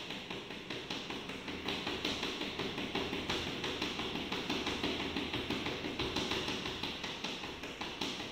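Sneakers tapping on a tiled floor while jogging in place, in a quick, steady rhythm of footfalls.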